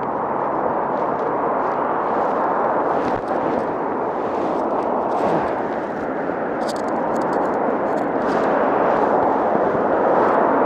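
Steady rushing noise of wind buffeting the microphone on a moving electric unicycle, mixed with the roar of multi-lane highway traffic passing below.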